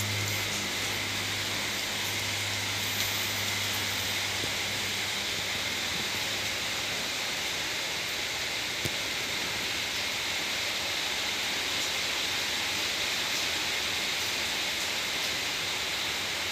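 Steady hiss of falling rain, with a low hum that fades out about five seconds in and a few faint clicks.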